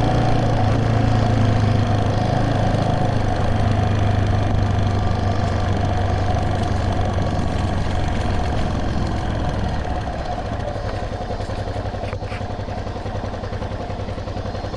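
A vehicle engine running steadily at low revs, its sound gradually fading.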